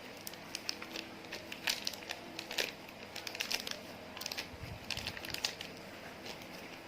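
Slime being worked by hand: an irregular run of small sticky clicks and pops, thickest in the middle stretch.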